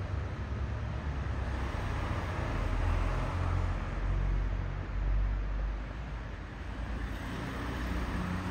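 Street traffic: a continuous low rumble of passing vehicles, swelling about three to five seconds in and easing off after.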